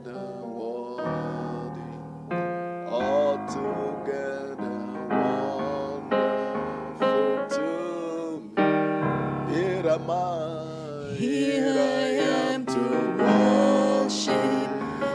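Keyboard playing slow worship chords, with a voice singing along at times.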